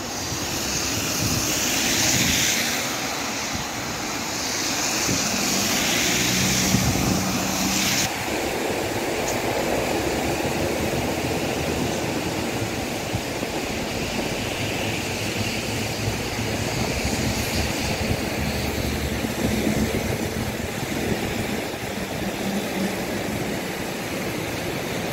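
Cars driving slowly through a flooded street, tyres swishing through the standing water over a steady engine hum. For the first several seconds it is heard from inside a car driving through the water, with a stronger hiss of spray, until a sudden change about eight seconds in.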